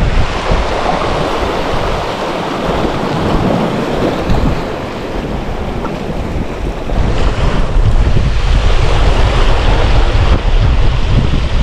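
Sea surf washing against the shore, with wind buffeting the microphone; the low wind rumble grows heavier about seven seconds in.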